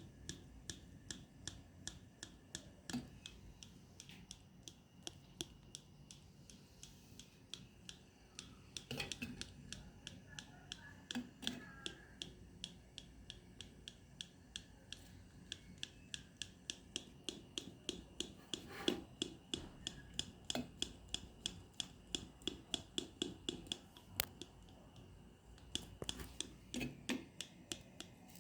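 Clothespins being squeezed open and snapped shut: a long series of sharp clicks, at times several a second.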